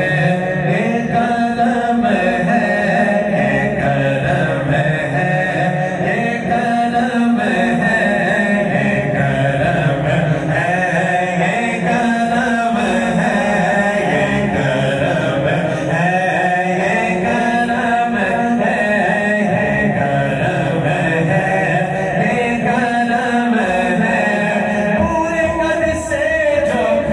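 A man singing an Urdu naat, devotional praise of the Prophet, into a microphone in long held, ornamented lines, with no instruments or beat.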